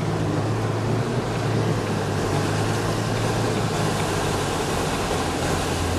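Small car's engine running steadily with a constant low hum, under an even rushing noise.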